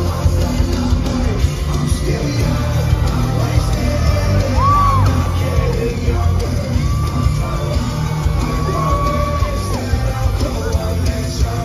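Live rock band playing loud through an arena sound system, heard from within the crowd, with singing and fans yelling along.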